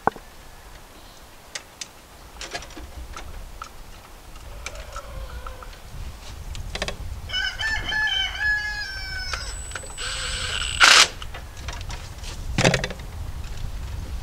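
A rooster crowing once, one drawn-out call of about two seconds around the middle, amid scattered small clicks. A sharp knock, the loudest sound, comes a second or so after the crow.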